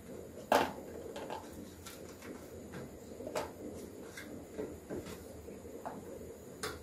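Dried plum halves being picked off a metal tray and dropped into a plastic tub: soft, scattered clicks and taps, with one sharper tap about half a second in.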